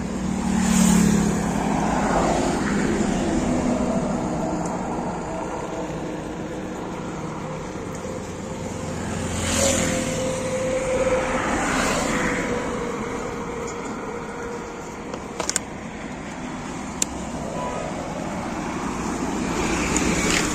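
Highway traffic passing close by, vehicles going by one after another in swells of loudness, one with a tone that slowly falls in pitch as it passes. Two sharp clicks come about three quarters of the way through.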